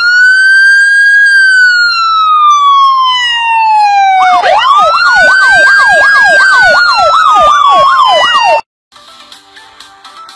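Emergency-vehicle siren, loud: a long wail that rises quickly and then slowly falls. About four seconds in, a second wail starts with a fast yelp over it, about three sweeps a second. It cuts off suddenly near the end and quieter music follows.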